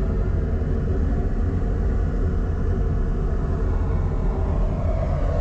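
Steady low drone of a ship's engine-room machinery running, with a constant hum of several steady tones, heard from inside the incinerator's furnace.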